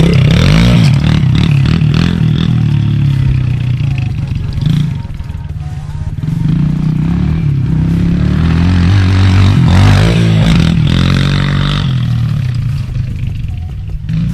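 Small pit bike engine revving up and down as it is ridden, its pitch rising and falling with the throttle, and getting quieter near the end as the bike moves away.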